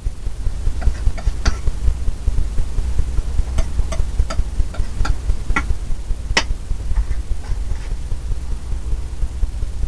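Oil paint being mixed on a palette: scattered light clicks and taps of the painting tool against the palette, the sharpest about six and a half seconds in. A steady low rumble runs underneath.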